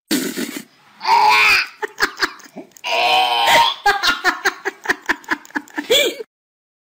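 A person laughing in repeated bursts of quick pulses, cutting off suddenly about six seconds in.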